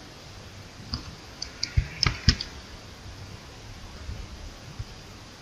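Computer mouse clicks: a quick run of about six sharp clicks, between one and two and a half seconds in.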